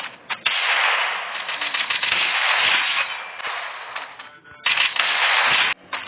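Pistol shots, a few seconds apart, each sudden crack followed by a long echoing tail that dies away.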